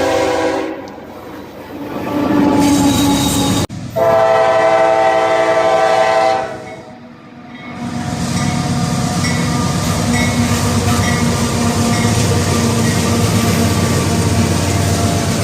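Diesel locomotive air horn sounding chord blasts in the first few seconds, broken off abruptly near four seconds in. From about eight seconds the train runs past with a steady engine drone and wheel clatter.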